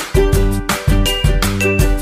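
Background music with a steady beat, about two beats a second, and held pitched notes.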